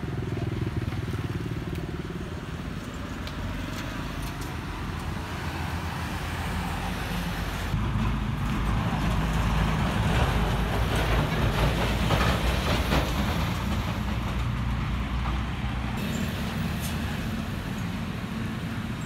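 Road traffic: a motor vehicle's engine running with tyre noise, swelling as it passes through the middle and then fading.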